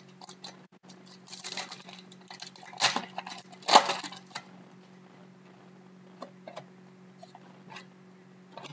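Foil wrapper of a Pinnacle hockey card pack being torn open and crinkled in three rustling bursts over the first half, then a few soft clicks and taps as the cards are slid out and shuffled.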